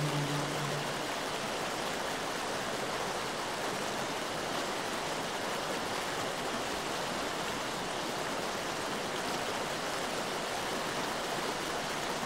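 Steady, even rushing noise with no distinct events; a low held tone ends about a second in.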